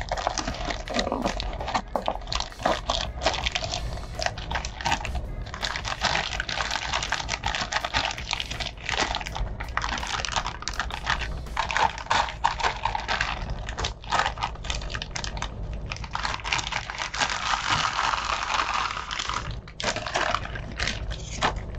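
Plastic wrapping crinkling and rustling as a microphone is unwrapped and taken out of its cardboard box: a dense run of crackles and small clicks with a few short pauses.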